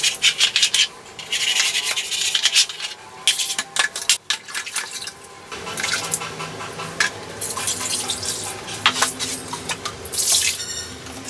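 Scrubbing on a wet tiled floor for the first five seconds or so, then water splashing and running, with a plastic bucket knocking as it is handled.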